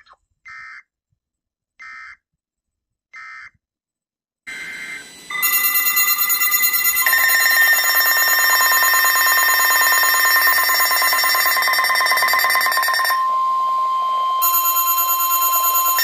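Three short electronic beeps. Then, from about five seconds in, a loud, shrill emergency alert tone sounds without a break from an Eton hand-crank emergency weather radio.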